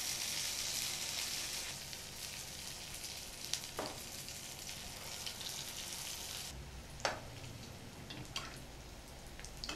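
Batter-coated paneer-corn bondas sizzling as they deep-fry in hot oil in a non-stick kadai. The sizzle is loudest as the balls go in and then eases, with a few light knocks of a slotted spoon against the pan.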